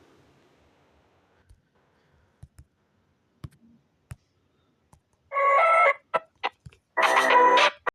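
Mostly faint, with a few scattered clicks, then two loud, brief, buzzy pitched calls, the first about five seconds in and the second about seven seconds in, with sharp clicks between them.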